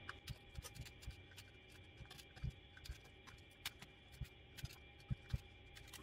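Faint, irregular clicks and light scrapes of a utility knife blade worked along the seam of a BMW DME engine control unit's aluminium housing.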